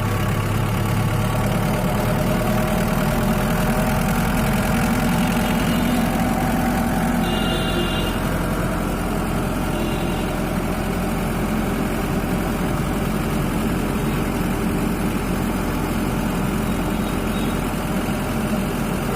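Mahindra Bolero M2DICR's four-cylinder common-rail diesel engine idling steadily, freshly filled with new engine oil after an oil and filter change.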